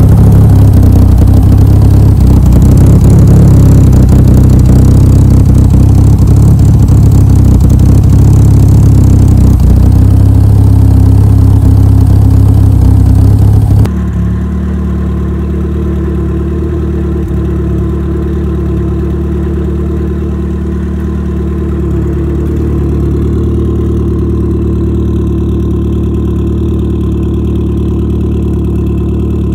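Mitsubishi Lancer Evolution V's turbocharged four-cylinder idling loud and steady, heard close at the tailpipe. About 14 seconds in it switches abruptly to a Ford Fiesta RS Turbo's four-cylinder idling steadily and more quietly at its exhaust tip.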